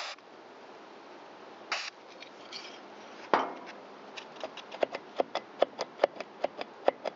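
Small metal-on-metal clicks from a chainsaw's rim sprocket and clutch drum being worked by hand on the crankshaft: a few separate knocks, then from about four seconds in a quick, uneven run of sharp clicks.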